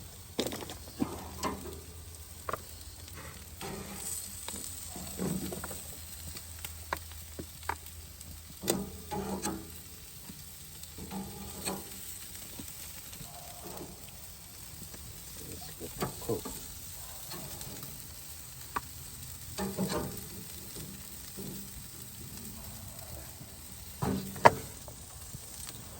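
Food sizzling on a grill, a steady faint hiss, with scattered clicks and knocks of utensils and grill parts now and then.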